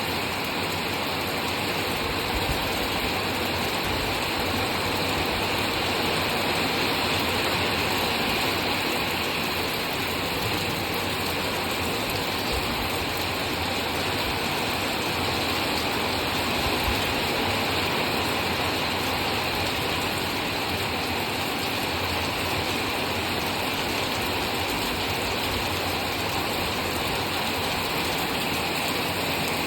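Rain falling, a steady even hiss with no pauses.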